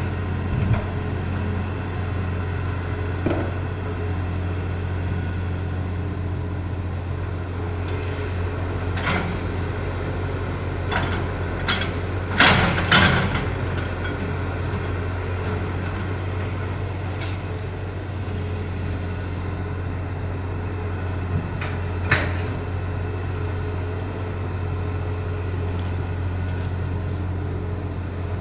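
Hitachi hydraulic excavator's diesel engine running steadily under digging load, with a few sharp knocks from the bucket and boom as it digs and swings, most of them bunched in the middle.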